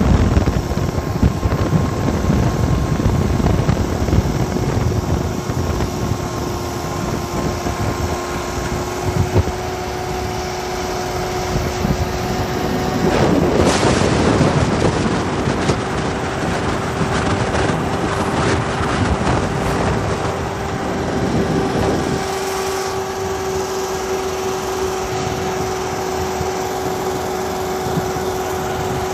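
Car running along a paved road, heard from inside the cabin: a continuous rumble of engine and tyres with a steady hum. The noise turns louder and rougher for several seconds about midway through, then settles back.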